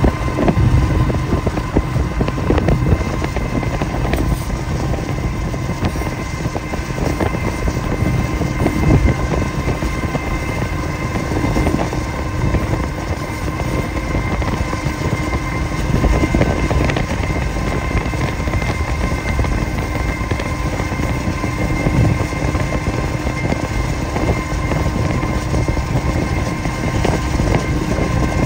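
Steady driving rumble and wind noise from a car pacing a moving Canadian National freight train, with a few constant hums running through it.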